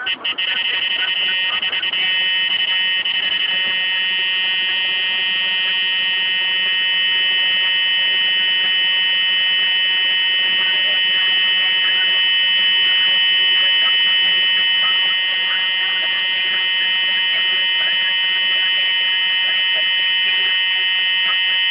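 Valentine One radar detector sounding its K-band alert as one continuous high-pitched buzzing tone, held unbroken, which on this detector means a strong radar signal.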